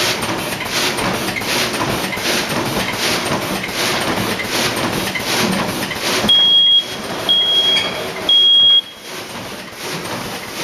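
Double-decker sealing and cutting bag-making machine running its cycle, a rhythmic stroke about twice a second. About six seconds in, three short high beeps sound a second apart, and the running noise drops away after them.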